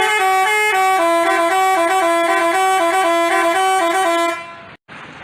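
Basuri telolet horn playing a quick, stepping melody of loud, clear horn tones. It cuts off about four seconds in, leaving only a brief dropout and faint hiss.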